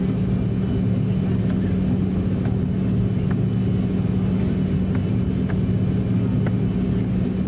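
Cabin noise inside an Airbus A330-300 taxiing, its Rolls-Royce Trent 700 engines near idle: a steady low hum and drone, with faint light clicks now and then.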